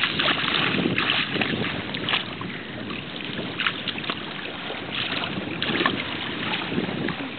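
Water splashing irregularly as a young child kicks and paddles, swimming in shallow water.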